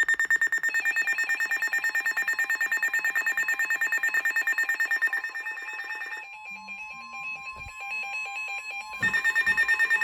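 Emergency weather alert tones from a weather radio: a loud electronic alarm beeping rapidly, about ten pulses a second, for about five seconds. Then a steady single warning tone, the NOAA Weather Radio warning alarm tone, sounds for about three seconds. The rapid beeping starts again near the end.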